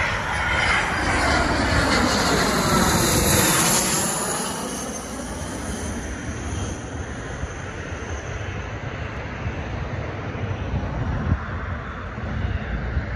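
Dassault Falcon 50 business jet passing low overhead on landing approach. The rush of its turbofan engines is loudest in the first few seconds, with a sweeping shift in tone as it goes by. It then fades into a quieter, steady rumble with wind on the microphone.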